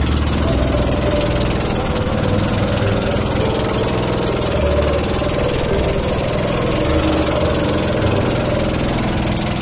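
Small boat engine running steadily, with a rumble that rises and falls.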